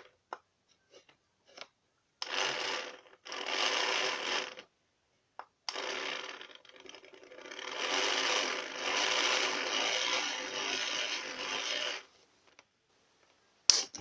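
Small battery toy blender motor buzzing in short runs through thick slime, twice briefly and then for about six seconds, barely coping with the load. A sharp click near the end.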